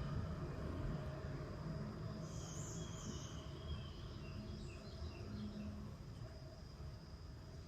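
Rural outdoor ambience: a steady high insect drone with a few bird chirps about two to three seconds in, over a low rumble.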